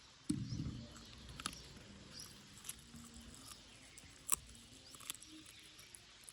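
Puppies eating: scattered small wet clicks and smacks of chewing and licking, with a few faint high squeaks. A low thump comes about half a second in.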